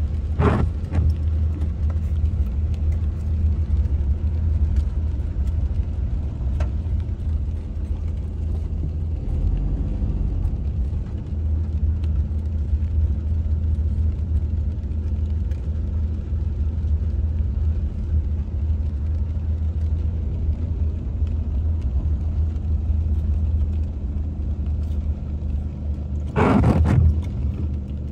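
Car driving slowly in traffic on a rain-wet street, heard from inside the cabin: a steady low engine and road rumble. Two brief louder swishes stand out, one just after the start and one near the end.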